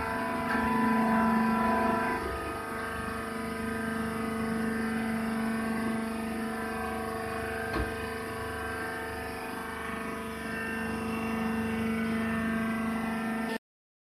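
Hydraulic baler's electric motor and pump running steadily, a constant hum with a strong low tone. A single short click about eight seconds in.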